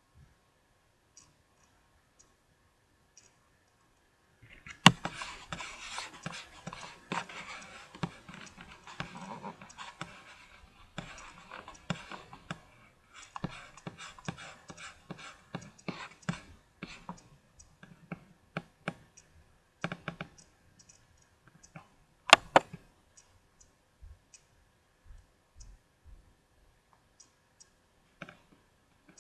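Rustling and clicking of trading cards being handled and sorted. About five seconds in, a dense shuffling rustle starts and runs for roughly twelve seconds, then thins to scattered clicks, with one sharp snap a little past the middle.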